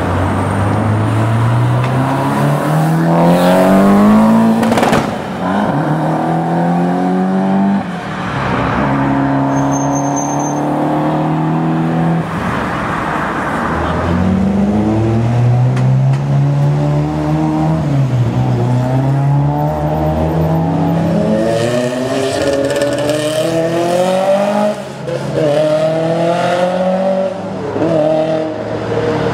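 Rally cars accelerating hard one after another, their engines revving up through the gears with the pitch climbing steeply and falling back at each gear change. A few sharp cracks come about four to five seconds in.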